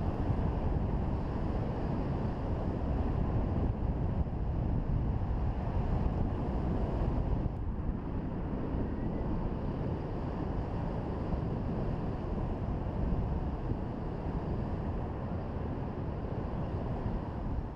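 Airflow buffeting the microphone of a camera carried by a paraglider in flight: steady wind noise, heaviest in the low range.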